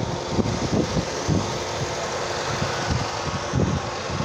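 Car engine idling steadily with a steady hum, its air-conditioning being serviced with gauges hooked up, and irregular low thumps over it.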